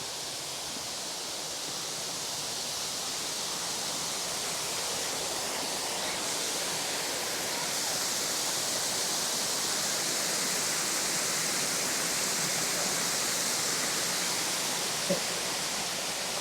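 Steady rushing of a waterfall cascading over rock, a hiss of falling water that swells gradually over the first half. A single short click sounds near the end.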